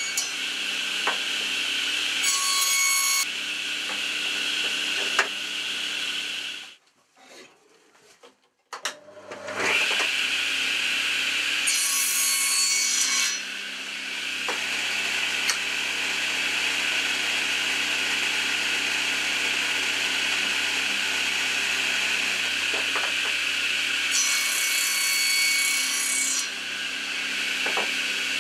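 Table saw running with a steady high whine while wooden blanks are fed through it. Several cutting passes, about two, twelve and twenty-four seconds in, add a harsher, brighter rasp. About seven seconds in the sound drops to near silence for two seconds, then the saw comes back up to speed.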